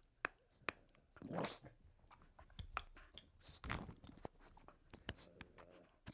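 A dog's faint mouth clicks and short breaths, heard close and quiet, with a few sharp clicks scattered through and brief breathy puffs about a second and a half in and again near the middle.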